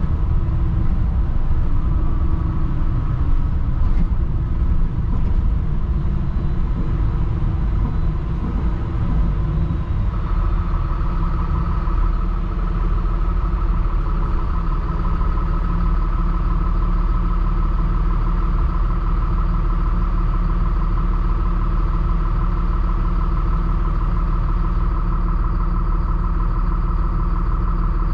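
Mercedes-Benz diesel engine of a 2007 Thomas HDX school bus running, uneven for the first ten seconds or so, then settling into a steady idle.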